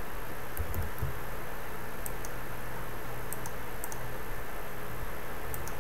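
Computer keyboard keys and mouse buttons clicking in small scattered groups, a few clicks at a time, over a steady hiss and low hum.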